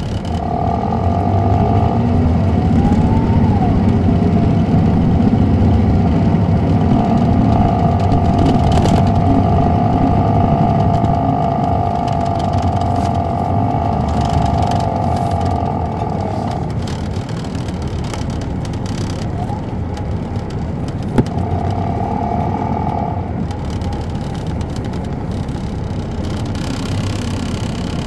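A 2007 MCI D4500CL coach's Caterpillar C13 ACERT diesel with Allison automatic transmission, heard from inside the cabin. The bus pulls under load for about fifteen seconds with a steady high whine over the engine, then eases off to quieter running. A sharp click comes a few seconds after it eases off.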